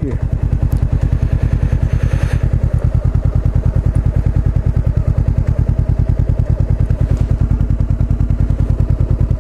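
Honda CBR500R's parallel-twin engine running at low revs as the bike slows to a stop, with a steady, even throb.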